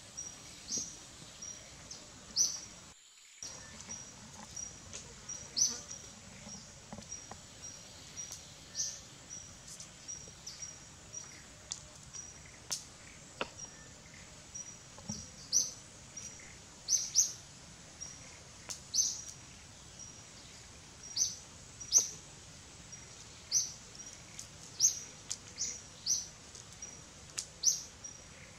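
Repeated short, high-pitched chirps, about one or two a second, over a faint steady high-pitched hum in the outdoor background.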